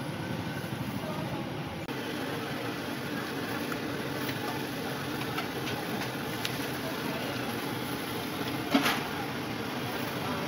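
Steady noise of a street stall frying puris in a wok of hot oil over a gas burner, with a few light clicks and one sharp clink near the end.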